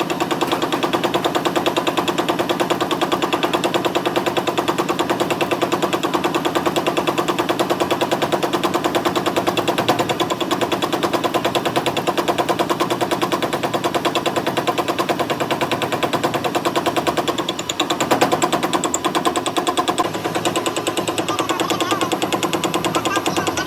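Metal lathe running and cutting, a fast, even clatter over a steady hum, briefly dropping away and resuming about eighteen seconds in.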